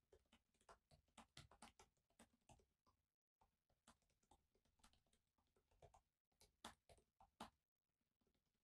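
Near silence broken by faint, irregular soft clicks of typing on a laptop keyboard, a few keystrokes a second with short pauses.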